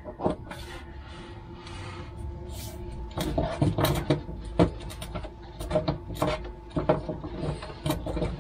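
Irregular knocks, clicks and scraping as a urethane SumoSprings helper spring is worked by hand up into its mount against the van's metal underbody above the rear axle. The handling noises come thicker from about three seconds in.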